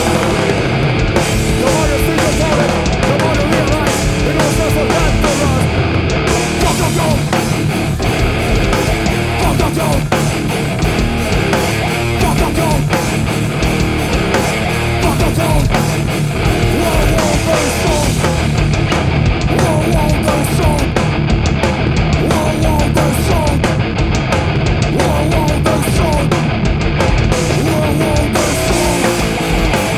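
Heavy rock band of guitar, bass guitar and drum kit playing loud and steadily, with no vocals.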